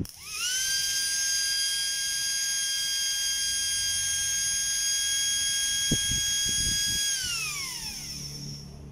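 Cordless drill's 540-size brushed DC motor whining as it spins up quickly, running at a steady high pitch for about seven seconds, then winding down with falling pitch. A few soft knocks come about six seconds in.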